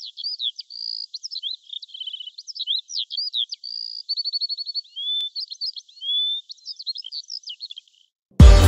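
A songbird singing a fast, varied song of chirps, slurred whistles and short rapid trills, with no other sound under it. Just before the end it stops, and electronic music with a heavy bass beat cuts in.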